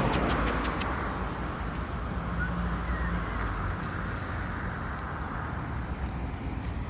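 Road traffic: a car passes close by just at the start and its tyre and engine noise fades away over the next couple of seconds, leaving a steady low traffic rumble.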